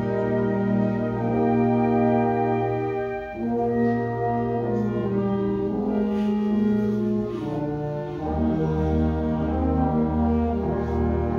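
Concert band of brass and woodwinds playing slow, sustained chords. The chord changes about three and a half seconds in and again about eight seconds in, where deep low notes come in underneath.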